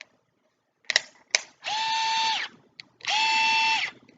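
Ikea cordless drill's motor whirring in two short runs of under a second each, about half a second apart, each spinning up and winding down as the trigger is pressed and released. A few clicks from handling the drill come just before the first run.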